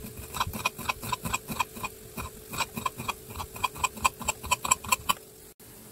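Chef's knife chopping fresh dill on a glass cutting board: rapid, even knocks of the blade on the hard board, about five or six a second, stopping about five seconds in.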